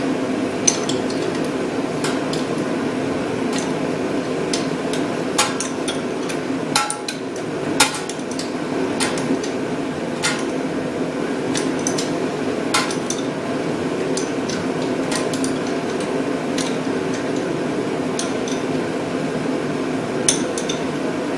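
Irregular metallic clicks and clinks of a 1/2 inch wrench working a starter mounting bolt on a small engine, over a steady background hum.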